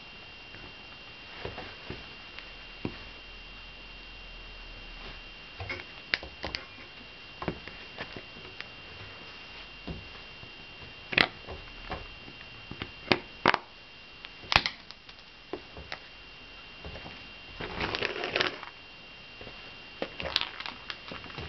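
Nike Shox sneaker soles stepping on a stone floor and crushing pieces of dried fruit: scattered sharp cracks and crunches, loudest in a quick run a little past the middle, with a longer grinding crunch about three-quarters through.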